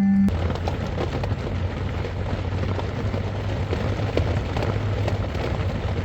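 Heavy rain pouring down, a dense patter of drops over a low rumble.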